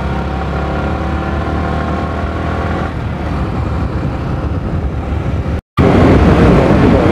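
Sport motorcycle engine running steadily while cruising, its pitch rising slightly over the first few seconds. After a sudden cut about three-quarters of the way in, a louder, even rushing noise takes over.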